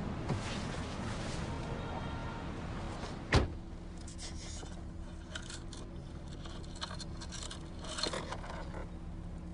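A taxi door shutting with one heavy thump about three seconds in, over the steady hum of the cab, with light rustling and small clinks after it.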